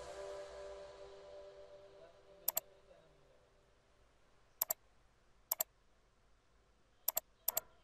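Computer mouse button clicks, each a quick double click, five times over several seconds, while background music fades out in the first two seconds.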